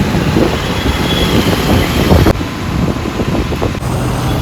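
Royal Enfield Bullet motorcycle engine running on the move, a steady low rumble with wind buffeting the microphone. The sound changes abruptly twice, about two seconds in and near the end.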